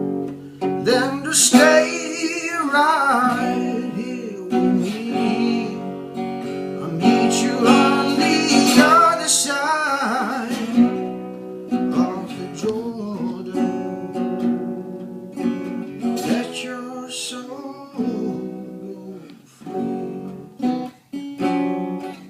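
Music: strummed acoustic guitar with singing, the voice strongest through the first half.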